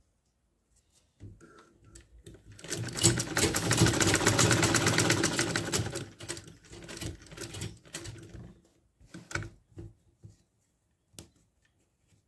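Domestic sewing machine stitching satin: it starts up about a second in, runs fast and even for a few seconds, then slows to a few single stitches and stops, with some separate clicks near the end.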